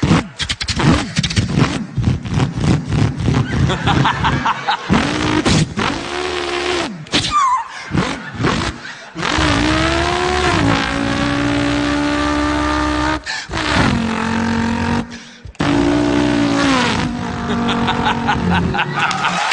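A man's voice imitating a V8 Holden Torana. For the first half it gives quick, choppy blips of revving. Then come long held engine notes that rise and step in pitch like a car accelerating through the gears, with short breaks in between.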